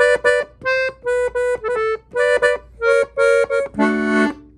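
Diatonic button accordion in F played on the treble buttons: a quick run of about ten short, detached notes, then one longer, fuller chord near the end.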